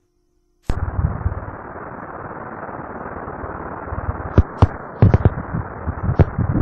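Prenatal ultrasound Doppler audio of a fetal heartbeat: a steady muffled rushing noise starts abruptly about a second in, with thumps that settle into a quick pulse of about two beats a second near the end, and a few sharp clicks.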